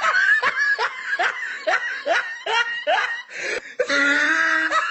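A person laughing in a steady run of short rising syllables, about two to three a second, with a longer drawn-out note near the end.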